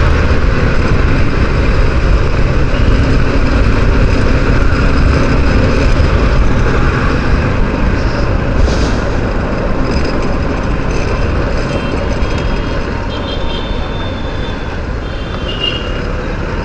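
Motorcycle riding in city traffic, heard from the bike-mounted camera: a steady rumble of engine and road noise that eases a little about twelve seconds in.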